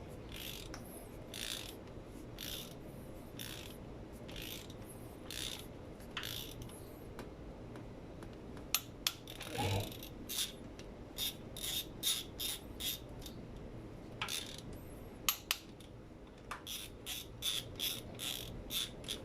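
Socket ratchet wrench clicking in repeated short strokes as bolts are run down on a Toyota Vios 1NZ-FE cylinder head. The strokes come about once a second at first, then in quicker runs of sharp clicks in the second half.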